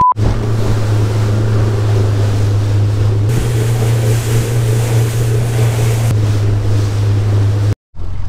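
A motorboat running at speed on open water: a steady engine drone under the rush of water and wind on the microphone. A short electronic beep tone sounds at the very start, and the sound drops out briefly near the end.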